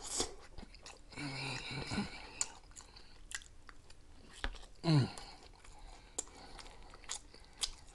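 A person chewing food close to the microphone, with wet mouth clicks and smacks, and a short falling hum about five seconds in.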